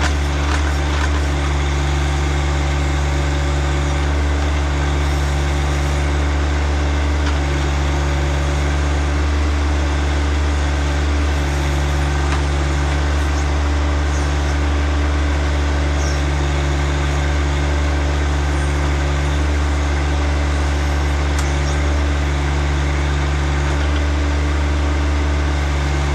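John Deere tractor's diesel engine running at a steady speed while working a backhoe.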